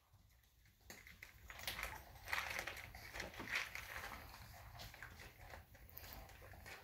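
Puppies shuffling and chewing on a wooden floor: faint, irregular clicks and rustles starting about a second in.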